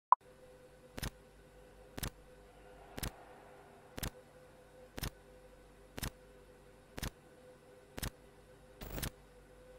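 Countdown-timer sound effect: a sharp hit, then a clock-like tick once a second, nine ticks in all, over a faint steady hum. The last tick is drawn out.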